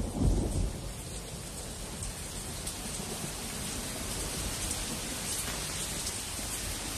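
Steady monsoon rain falling, an even hiss throughout. A low rumble of thunder dies away in the first second.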